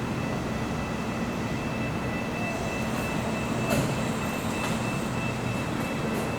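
A large vehicle's engine running steadily: a low rumble with a faint, constant high whine over it, and a brief click near the middle.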